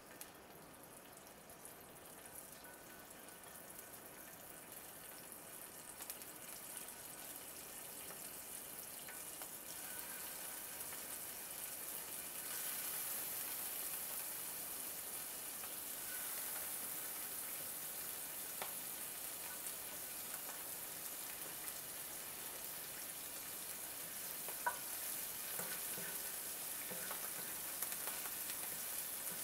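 Raw shrimp sizzling in hot oil in a cast iron skillet. The sizzle grows louder over the first dozen seconds as more shrimp go in, then holds steady, with a few light clicks near the end.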